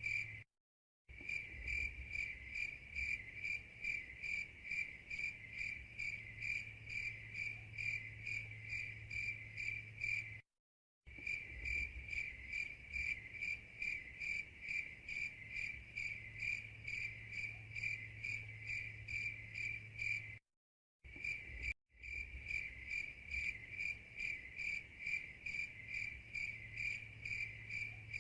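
Crickets chirping in a steady fast pulse, several chirps a second, on one high pitch. The sound cuts out to dead silence for about half a second three times, like the seams of a looped recording.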